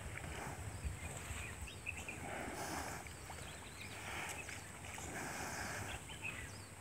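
Water sloshing and lapping as water buffalo wade and swim through a muddy pond, in uneven swells that come and go every second or so.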